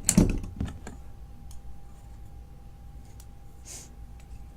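Small brass padlock being handled: a quick cluster of sharp clicks and light knocks in the first second, then a few faint ticks and a brief rustle near the end.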